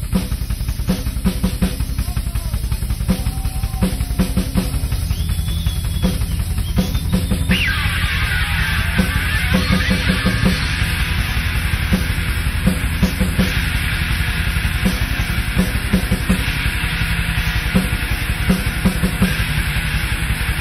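Live punk rock band starting a song: the drum kit plays alone at first, and about seven and a half seconds in the guitars come in with a downward slide and the full band plays on together.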